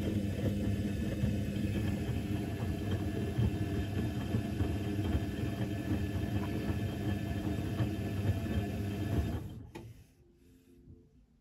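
Electrolux EWC1050 front-loading washing machine running a hot 90°C cotton wash: the drum turns with a steady motor hum and churning noise, then stops abruptly about nine and a half seconds in.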